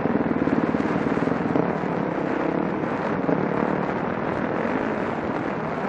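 2012 Yamaha WR450F single-cylinder four-stroke dirt-bike engine running hard under load on a hill climb, heard close from the bike, with rushing noise on top.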